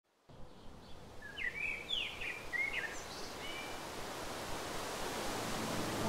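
Outdoor ambience fading in from silence, a steady hiss that slowly grows louder, with a few birds giving short chirps and gliding whistled calls in the first half.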